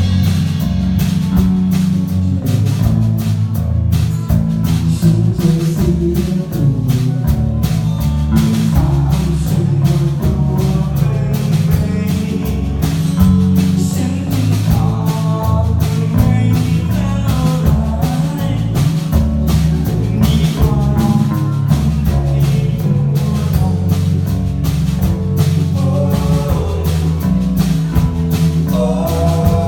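Live band music: guitar over drums and bass with a steady beat.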